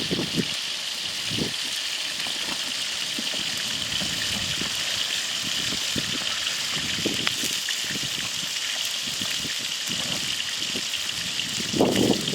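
Steady rain falling, an even hiss with occasional louder drops or taps.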